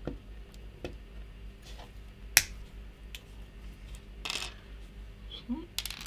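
Side cutters snipping a strip of male pin headers to length: a few sharp clicks, one loud snap about two seconds in, with a brief rustle a little past four seconds.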